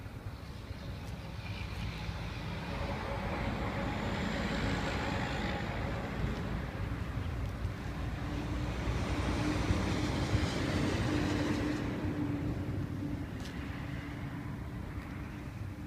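A motor vehicle passing by unseen: engine and tyre noise that swells up, peaks twice and then fades away.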